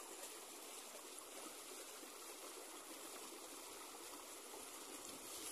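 Shallow river running fast over a stony bed, a faint, steady rush of water.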